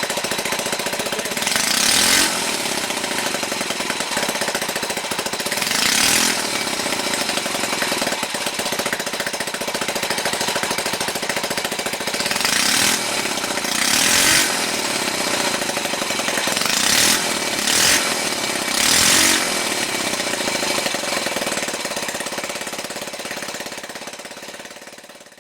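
Rebuilt circa-1948 Ducati clip-on cyclomoteur engine, a small single-cylinder four-stroke, running freshly restored. It has a steady rapid beat with several brief louder surges and fades out near the end.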